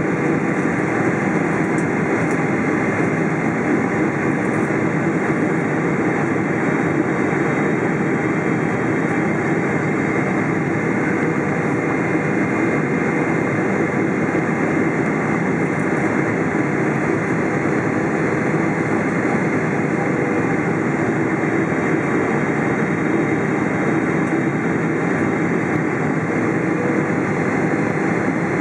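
Steady jet engine and airflow noise of a Boeing 777-300, heard inside the cabin beside the wing on its approach.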